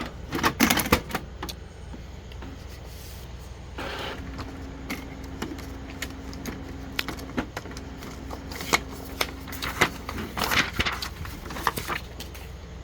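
Epson EcoTank ET-2760 inkjet printer's mechanism running a nozzle check. A cluster of clicks as the paper goes in is followed, from about four seconds in, by a steady motor hum with light ticks for about six seconds as the sheet is fed and printed, then another burst of clicking near the end.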